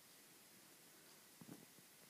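Near silence: room tone, with a few faint soft clicks about one and a half seconds in.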